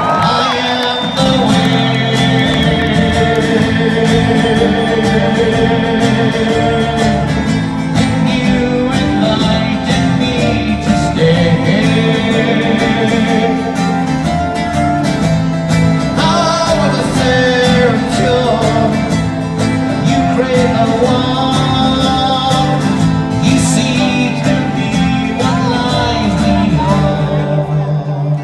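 A song playing: a sung vocal line over guitar and other instruments.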